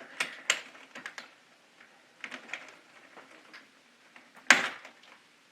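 Scattered light plastic clicks from a KeyTronic E3601 keyboard being handled as its keycaps are taken off, with one louder knock about four and a half seconds in.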